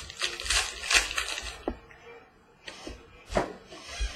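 2016 Contenders football trading cards being handled and sorted: a crinkly rustle for about a second and a half, then a few scattered light clicks and taps.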